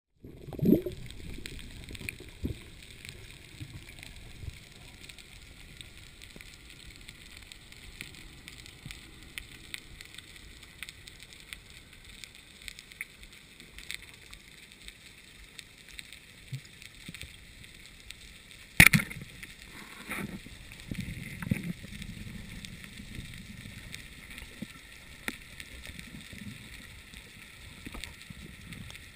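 Underwater ambience heard through a waterproof camera housing: a steady hiss full of faint scattered clicks, with occasional low thumps. One sharp, loud knock comes about two-thirds of the way in.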